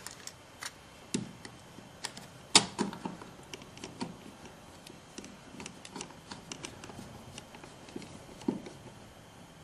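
Light, scattered clicks and taps of a plastic outlet cover plate being set against the wall over a duplex receptacle, then a screwdriver fastening its centre screw. The sharpest click comes about two and a half seconds in.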